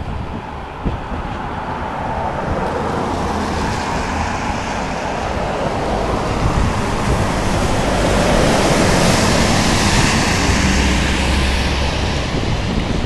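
Road traffic and wind noise on a steel truss bridge: a steady rush over a low engine hum. It swells as a car passes close by and is loudest a little past the middle.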